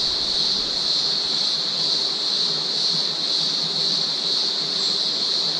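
A steady, high-pitched insect chorus over the even rush of a small stream's running water.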